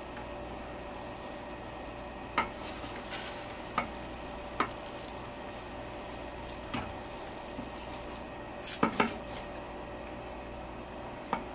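A metal utensil clinking and scraping against the Instant Pot's stainless steel inner pot: scattered single clinks, a quick cluster of them about nine seconds in, over a faint steady hum.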